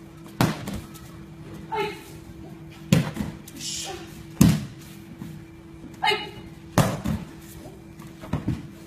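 Aikido breakfalls: bodies slapping down onto the mats, about five heavy thuds a second or two apart. Between them come two short shouts that drop in pitch.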